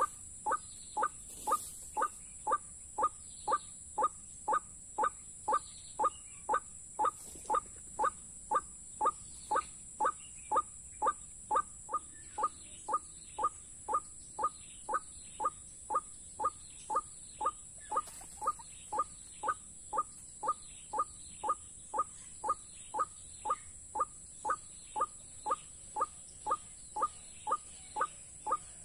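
White-breasted waterhen call played in a loop as a trapping lure, most likely from a small speaker: one short note repeated about twice a second, very evenly. A steady high hiss runs underneath.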